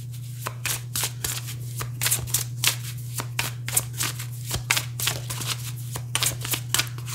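A deck of oracle cards being shuffled in the hands: a quick, irregular run of card flicks and snaps, over a steady low hum.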